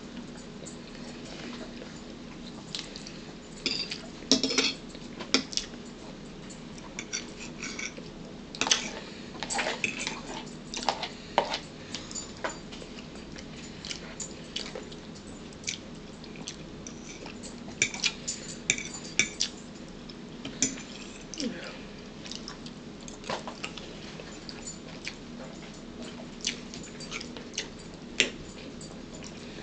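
A spoon clinking and scraping against a bowl while eating, in scattered irregular taps, over a faint steady hum.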